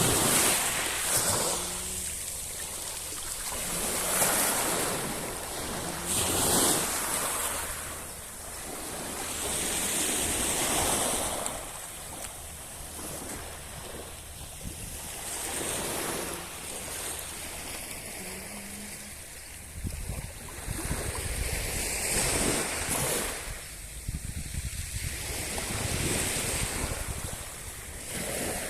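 Sea waves breaking and washing up the shore, the noise swelling and easing every few seconds. In the second half, wind buffets the microphone.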